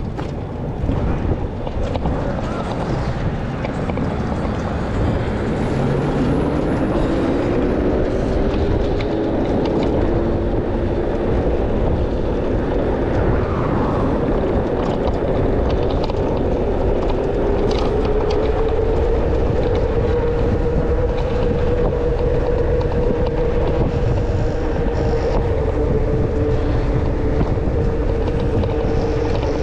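ONYX RCR electric bike's motor whining, rising steadily in pitch for the first twenty seconds or so as it picks up speed and then holding, under heavy wind buffeting on the microphone.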